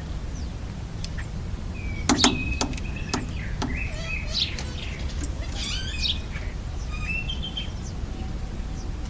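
Birds chirping, with several sharp clicks about two to four seconds in, over a steady low rumble.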